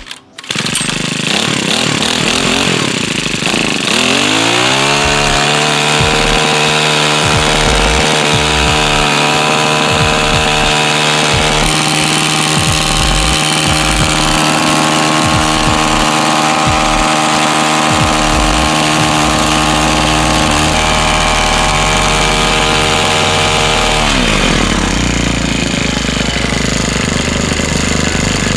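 Small gasoline engine of a brand-new Legend Force garden tiller running. It rises in pitch about four seconds in, runs steadily at high speed, then drops in pitch a few seconds before the end.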